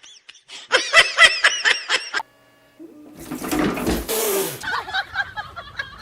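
A person laughing in rapid, high-pitched bursts. After a short break comes about a second and a half of loud, rushing noise, then voices near the end.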